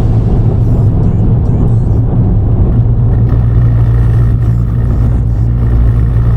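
Steady low drone of a Subaru WRX driving along, engine and road noise together.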